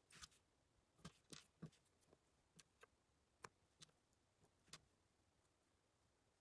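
Faint, irregular clicks and taps of small plastic Lego Technic parts being handled and pressed together by hand.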